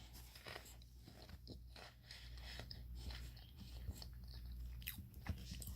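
Faint chewing of a crunchy corn snack, with scattered soft crunches and a few sharper ones near the end.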